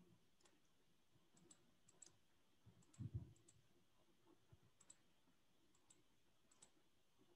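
Faint computer mouse clicks, scattered and several in quick pairs, as grips are picked and stretched in AutoCAD, with one soft low thump about three seconds in.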